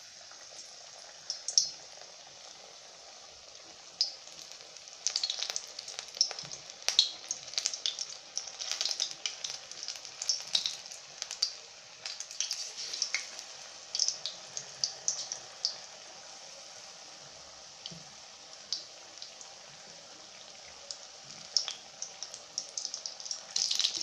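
Besan-battered pumpkin slices (kumror chop) deep-frying in hot oil: a steady sizzle with many sharp crackles and pops, and a louder rush of sizzling near the end.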